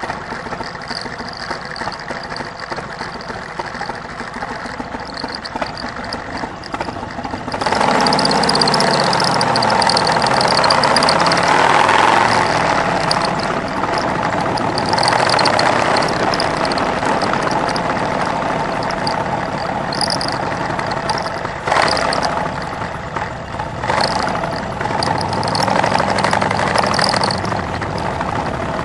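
Motorcycle engine running while riding, heard from the bike itself, with a steady rush of noise. It gets louder about seven or eight seconds in.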